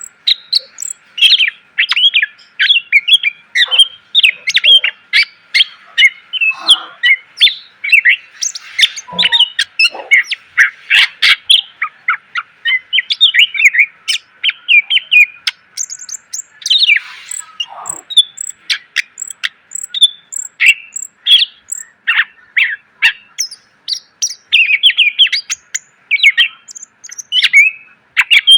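Green leafbird (cucak ijo) singing a loud, unbroken stream of rapid chirps, trills and whistled phrases, some sliding down in pitch, a song packed with varied borrowed phrases.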